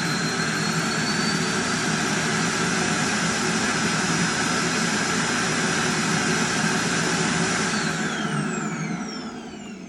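Roomba's self-emptying dock running its loud suction motor to empty the robot's bin, a steady jet-like whoosh that winds down with falling pitch about eight seconds in.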